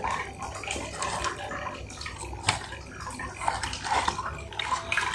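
Chewing fried chicken with smacking mouth sounds, mixed with the rustle of a paper wrapper and cardboard box being handled; many small irregular clicks, one sharper click about halfway through.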